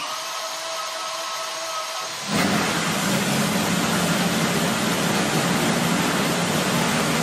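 An 18-cylinder two-row radial model aero engine of about 700cc running with its propeller turning, steady and with a thin whine. About two seconds in the sound jumps louder and fuller and then holds steady.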